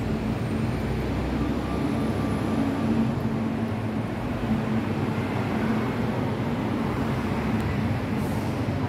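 Steady noise of road traffic, a continuous drone of passing vehicles with a faint engine hum in it.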